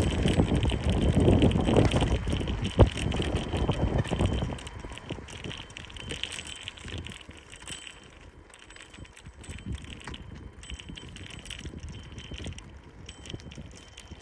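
Wind rumbling on the microphone during a bicycle ride, with a sharp knock almost three seconds in. After about four and a half seconds the wind drops, leaving the quieter rolling of the bike over rough asphalt with light rattles and ticks.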